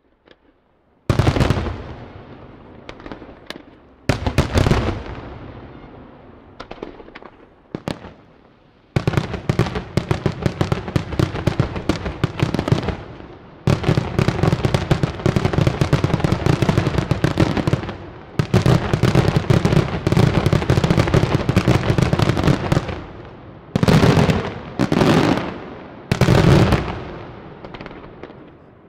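Aerial firework shells bursting. A single bang comes about a second in, trailing off slowly, and a few more spaced bangs follow. From about nine seconds a dense, rapid barrage of bangs and crackle runs for some fourteen seconds, then three separate heavy bursts close it.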